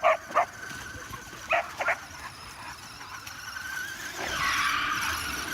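Dog barking in short, high barks: two at the start and two more about a second and a half in. Near the end comes a steady, louder stretch of noise.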